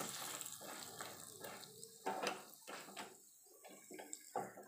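Faint sizzling and irregular crackling of peanuts, dals and dried red chillies frying in oil in a small steel pan, with a steel ladle stirring through them; a few louder crackles come about two seconds in and near the end.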